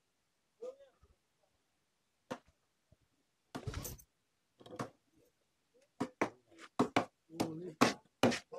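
Irregular knocks and thuds of a knife against a cutting board as cooked meat is sliced, sparse at first and coming more often in the second half.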